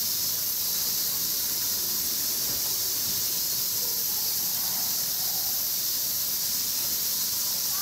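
Steady high-pitched hiss of a summer cicada chorus, unchanging throughout, with faint distant voices beneath it.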